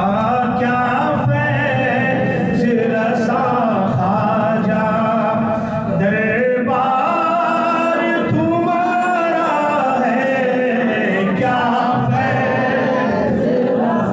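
A man singing a manqabat, an Urdu devotional hymn in praise of Gharib Nawaz, in long, wavering held notes.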